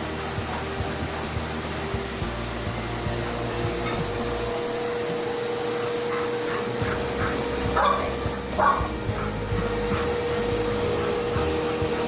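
Household vacuum cleaner running steadily with a constant hum and whine. Two short, louder sounds come about 8 and 9 seconds in.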